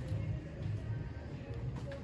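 Yamaha Tricker's 249 cc air-cooled single-cylinder four-stroke engine idling steadily.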